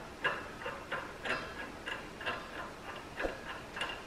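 Brass gas regulator being threaded by hand onto a shielding-gas cylinder valve, its fitting giving a run of light clicks about two a second.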